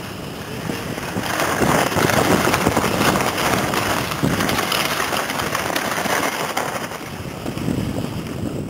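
Skis sliding and scraping over piste snow at speed, with wind buffeting the microphone; the scraping grows louder about a second in.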